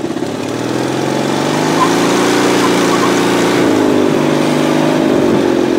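Go-kart's 18 hp Briggs & Stratton engine revving up under load as the kart accelerates. Its pitch rises for about two seconds and holds, then drops and wavers about three and a half seconds in before climbing again. This is the top end of the power band, where the owner says the engine breaks up.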